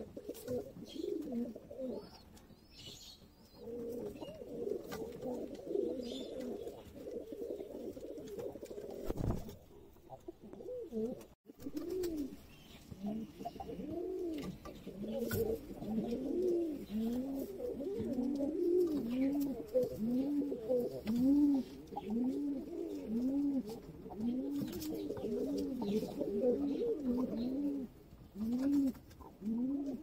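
Domestic pigeons cooing: low, overlapping coos from several birds. After a brief break about a third of the way in, one bird coos in a steady run of rising-and-falling notes about once a second.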